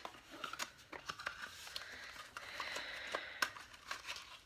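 Handling noise of small cosmetics packaging: scattered light plastic clicks, with a stretch of soft rustling in the middle.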